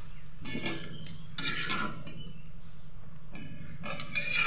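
Metal spatula scraping and stirring marinated chicken drumsticks in a metal kadai, in about four short strokes, over a steady low hum.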